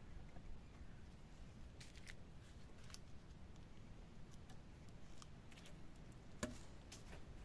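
Faint, scattered clicks and knocks of wooden poles being set and shifted against a stick shelter frame, with one louder knock near the end.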